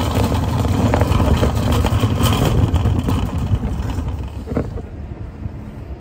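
Metal shopping cart rolling across an asphalt parking lot: wheels rumbling and the wire basket rattling, getting quieter over the last second or two.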